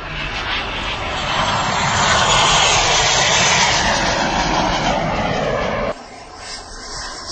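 Radio-controlled model jet flying by: a rushing whoosh that swells over the first couple of seconds and holds loud, then cuts off abruptly about six seconds in, followed by a quieter jet sound.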